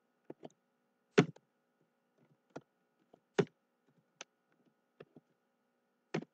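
Computer keyboard being typed on slowly, one key at a time: about a dozen separate clicks at an uneven pace, two of them much louder than the rest.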